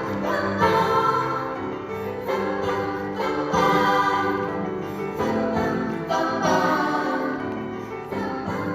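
Vocal ensemble singing in several voices with piano accompaniment, a musical passage without clear words between verse and chorus.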